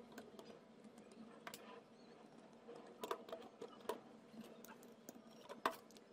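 Faint, scattered clicks of plastic Lego bricks being handled and snapped together, with a few sharper clicks about three to four seconds in and the loudest one near the end.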